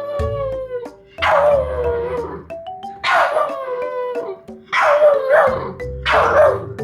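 Boston terrier puppy howling: a run of drawn-out cries, each sliding down in pitch, about one every second and a half. Background music plays under them.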